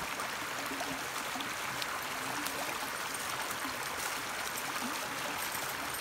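A small forest creek running over a low riffle, a steady rush of water with some gurgling.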